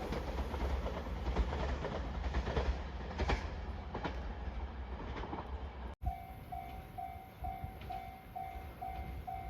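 A train passing close by, its wheels clicking over rail joints. About six seconds in, the audio cuts to a Japanese level-crossing warning bell ringing, with even, repeated tones about twice a second.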